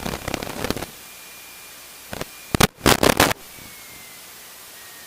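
Aircraft radio static over a steady hiss: crackling for about the first second, then two loud short bursts of static about two and three seconds in, with a faint high whistle.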